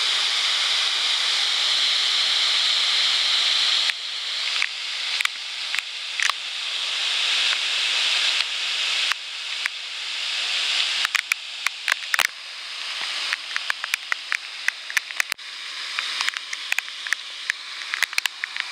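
Waterfall pouring into a pool: a steady rushing hiss of falling water. About four seconds in, it starts to be broken by many sharp clicks, the level dropping and climbing back again and again.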